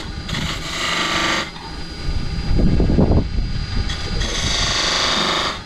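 Turning tool cutting a spinning live oak blank on a wood lathe: two stretches of cutting hiss, one near the start and one near the end, over the lathe's steady whine. A low rumble about halfway through is the loudest moment.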